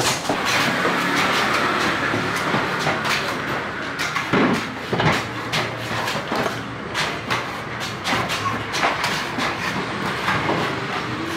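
An engine or motor running steadily, with frequent sharp knocks and clacks over it.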